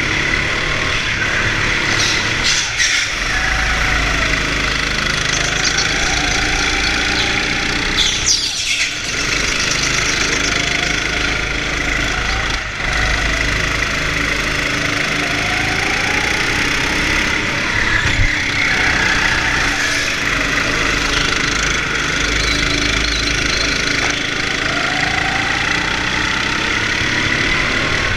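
Go-kart motor running at speed, its pitch rising again and again as the kart accelerates out of each corner and dropping briefly into the turns.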